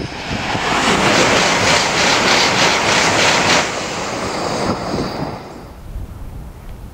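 N700-series Shinkansen passing through at high speed: a loud rush of wind and wheel noise swells about a second in, with a fast beat of about four a second as the cars go by, then fades after about four seconds.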